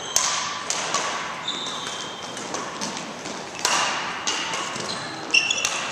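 Badminton rally: racquet strings sharply hitting a shuttlecock several times, with short high squeaks from court shoes on the floor between the hits, echoing in a large hall.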